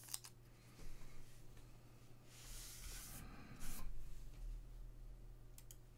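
A trading card in a clear plastic sleeve being handled, giving a soft plastic rustle that is loudest from about two and a half to four seconds in, with a few faint clicks.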